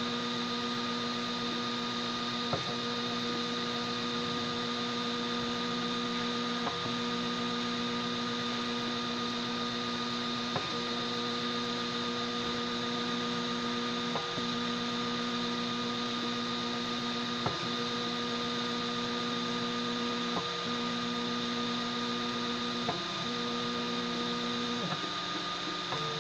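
Homemade 3D printer's stepper motors whining steadily as the print head moves, over a steady hiss. The whine breaks with a faint click every three or four seconds.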